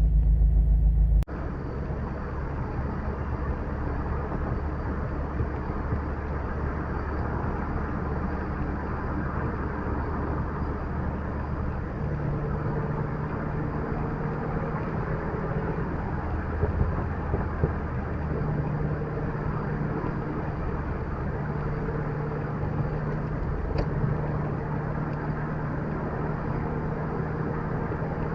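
A car on the move: steady engine and road noise, with the engine note shifting now and then. About a second in, a louder, deeper rumble cuts off abruptly into it.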